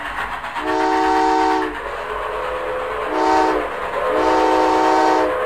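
Steam locomotive whistle sounding a chord of several notes in three blasts, long, short, long, over the steady running noise of the train.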